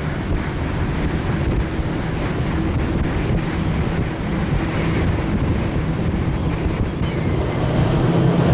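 Motorboat engines running steadily under way, with the rush of water and wind on the microphone; the engine hum grows louder near the end.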